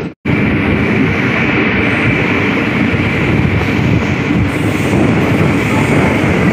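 Passenger train running at speed, heard from an open coach window: a steady rumble of the coach on the rails, with wind buffeting the microphone. The sound cuts out for a moment right at the start.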